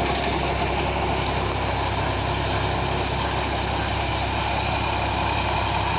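Sonalika tractor's diesel engine running steadily as it drives a rotary tiller through the soil.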